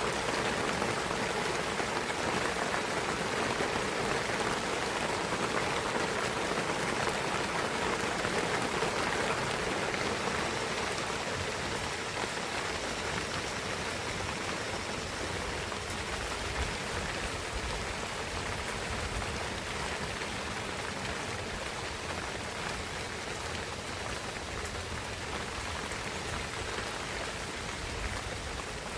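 Steady rain falling in a pine forest, a dense even patter of drops that eases slightly partway through.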